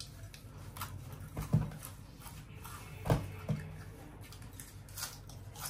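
Several people chewing dry, crunchy spicy noodles: scattered crisp crunches and clicks, with a couple of louder soft thumps about a second and a half and three seconds in.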